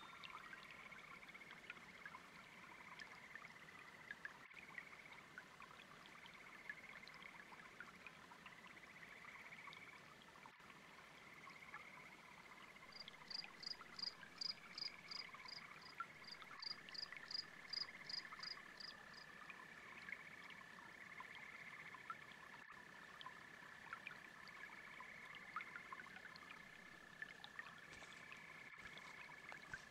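Faint chorus of frogs and toads calling in repeated trills, with a steady high insect-like tone. Two runs of quick, high chirps, about three to four a second, stand out in the middle.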